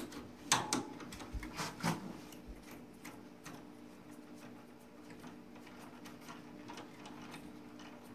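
Handling noise as an aerosol can is strapped into a pole sprayer's holder with hooks attached. There are a few sharp clicks and knocks in the first two seconds, then faint light ticks over a steady low hum.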